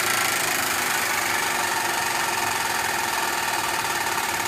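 Steady electrical hum and buzz from a 24-volt relay and reed-switch magnet rig, with a faint steady whine. It is even throughout, with no starts or stops.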